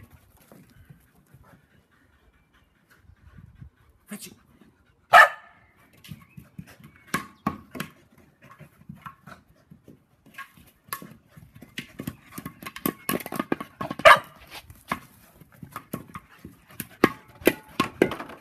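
Australian cattle dogs at play: a sharp bark about five seconds in and another about fourteen seconds in. Between and after them comes a busier run of short scuffling and panting sounds through the second half.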